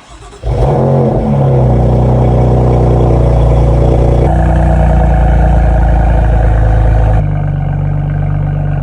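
BMW M3 engine cold-starting: a brief crank, then a loud flare about half a second in, settling into a steady high idle that drops a step about four seconds in and again near the end.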